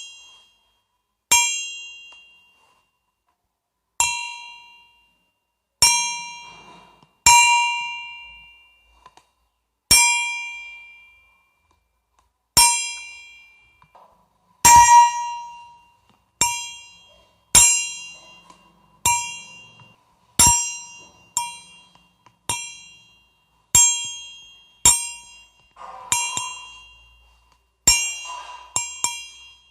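A bell struck over and over at uneven intervals, roughly every one to three seconds, each strike ringing out and fading. Near the end the strikes come faster and some overlap.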